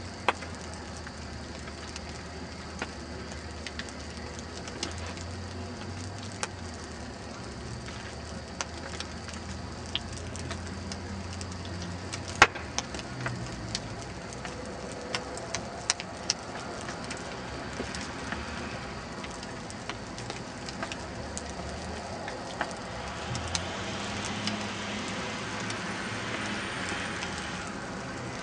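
A burning car's fire crackling and popping steadily, with one sharp, loud pop about twelve seconds in. A low hum runs underneath until about then, and a vehicle engine grows louder near the end.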